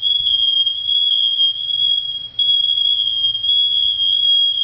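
Several Kidde smoke alarms sounding together, set off by incense smoke: a loud, high-pitched alarm tone that runs almost without a break, dipping briefly about halfway through.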